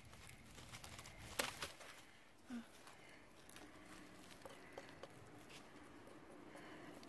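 Faint rustling and small clicks of a kitchen knife cutting through a pumpkin's stem and tangled vines, with one sharp snap about a second and a half in, then soft scraping ticks as the knife works over the pumpkin's skin.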